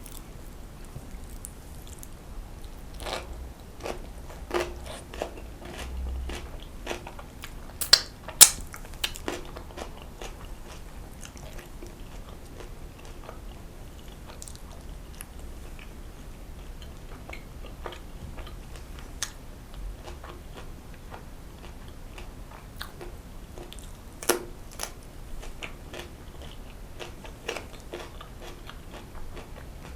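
Close-miked eating: steady chewing and biting, with scattered small clicks and a few sharp loud clicks, two together about eight seconds in and one more near the three-quarter mark.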